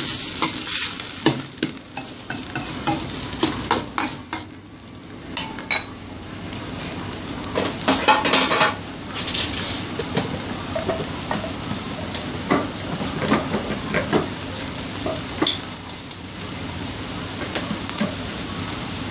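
Grilled chicken pieces and herbs sizzling in a stainless steel wok, with a spatula scraping and knocking against the pan through the first half. After about ten seconds the stirring mostly stops and the sizzling goes on steadily with only occasional clicks.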